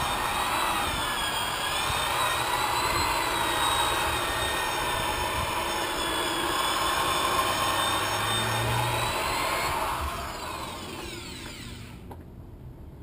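Electric polisher buffing a boat's painted hull with polishing compound: a steady motor whine that winds down and fades about ten seconds in.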